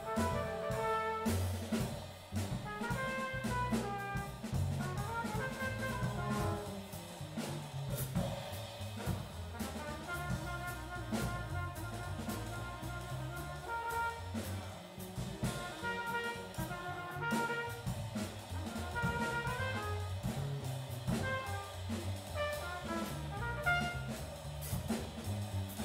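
Live small-group jazz: a trumpet plays a running melodic line over an upright bass line and a drum kit with steady cymbal strokes.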